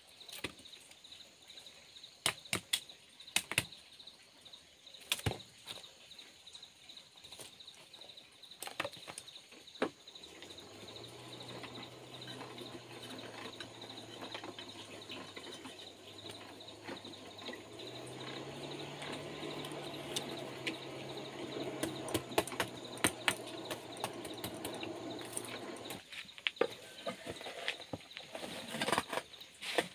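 Sharp clinks and knocks of metal bars and charcoal being moved about a charcoal forge. From about ten seconds in, a hand-cranked forge blower whirs steadily for about fifteen seconds, its pitch stepping up partway through as it is cranked faster, blowing air into the fire.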